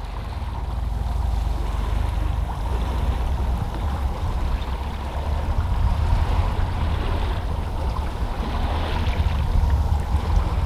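Boat running on open sea: a low, fluttering rumble with water rushing and wind buffeting the microphone, fading up in the first second.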